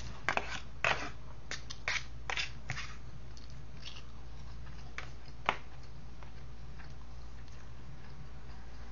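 Eating sounds: a metal fork clicking and scraping in a disposable tray of scrambled eggs, with biting and chewing. A quick run of sharp clicks comes in the first three seconds, and a single louder click about five and a half seconds in, over a steady low hum.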